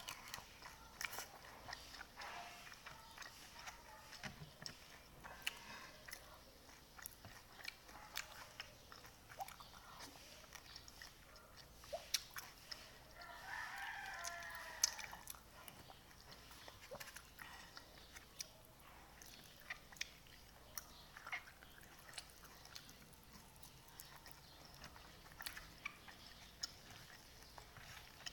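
Close mouth sounds of eating pancit batil patong noodles: chewing and biting with many small clicks. A rooster crows once in the background about halfway through, for about two seconds.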